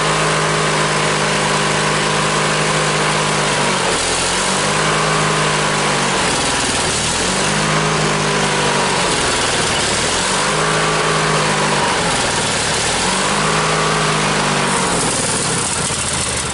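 Riding lawn mower engine running at wide-open throttle and surging, its speed sagging and picking back up about every three seconds. It is fed from a gas can through a long makeshift fuel line, which the owner suspects may be why it runs poorly.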